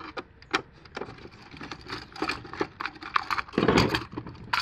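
Hand screwdriver working screws on the plastic underside of a Hayward Navigator pool cleaner: scattered light clicks and ticks of metal on plastic, with a louder scraping rustle of the plastic body being handled near the end.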